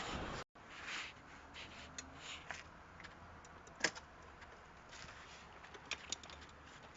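Scattered light clicks and taps of small metal parts being handled and fitted, after a sudden cutout about half a second in.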